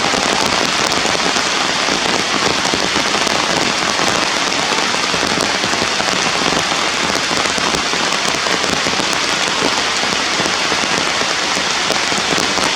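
Loud, steady rain falling without a break.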